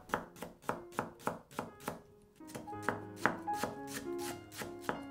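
Kitchen knife thinly slicing myoga ginger on a cutting board: quick, even strokes about three or four a second, with a brief pause about two seconds in. Soft background music plays under it.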